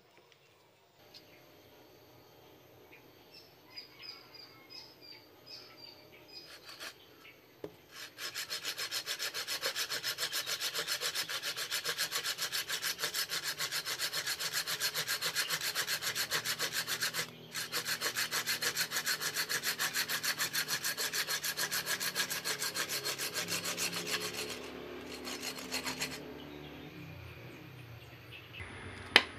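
Curved pruning saw cutting through a branch of a rukem (Flacourtia) bonsai stock. Quick, even back-and-forth strokes start about a quarter of the way in, pause once briefly near the middle, and stop a few seconds before the end.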